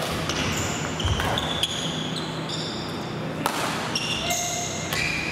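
Badminton doubles rally in a gymnasium: a few sharp racket hits on the shuttlecock, about two seconds apart, among many short high squeaks of court shoes on the gym floor, with the hall's echo.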